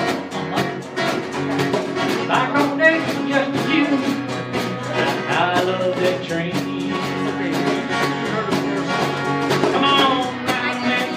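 Live country-style song: a man sings over strummed acoustic guitar, with a djembe keeping a steady beat of about four hits a second.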